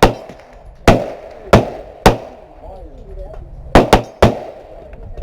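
Gunfire: seven sharp shots at uneven intervals, two of them in quick succession a little under four seconds in, each with a short ringing echo.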